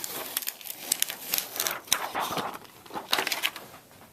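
Protective plastic film being peeled off a netbook's lid and handled, crinkling and crackling in irregular bursts that die down near the end.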